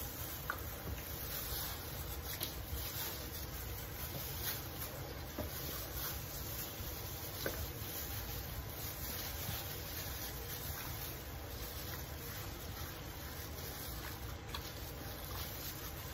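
Hands in thin plastic gloves rubbing marinade into a whole raw bird in a metal pot: soft crinkling and wet rubbing, with a few faint clicks, over a steady background hiss.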